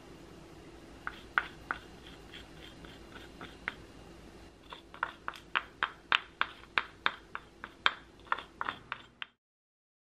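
Short, light clicks and scratches, a few at first and then about three a second, while seaweed flakes and sesame seeds are sprinkled over bowls of noodle soup. A faint steady hum lies underneath, and the clicks stop abruptly shortly before the end.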